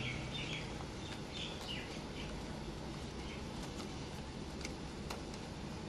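Faint bird chirps in the background, short and repeated in the first couple of seconds, over a steady background hiss, with a few soft clicks later from handling the paper cover on the jar.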